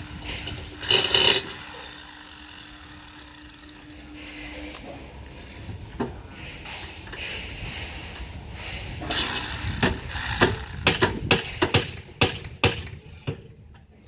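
Steel column formwork being fitted by hand: sharp metal knocks and clanks, coming thick and fast in the second half, over the steady low rumble of machinery running.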